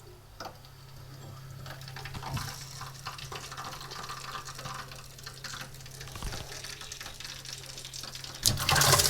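Water running through a tap as the hot water supply is being primed, building up and breaking into a louder gush near the end, over a steady low hum.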